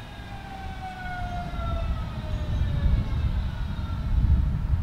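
Electric train passing close by. A whine of several tones glides slowly down in pitch and fades over the first two and a half seconds, under a rumble of wheels on the rails that grows and is loudest near the end.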